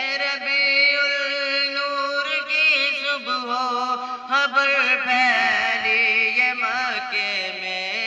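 A single young voice singing a naat, an Urdu devotional poem in praise of the Prophet, unaccompanied, with long held notes that waver and turn in melismas. The voice is amplified through a small portable speaker.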